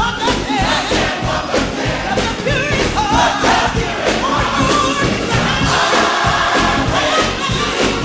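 Live gospel music: a choir singing over a band with a steady beat, with a congregation's voices and shouts mixed in.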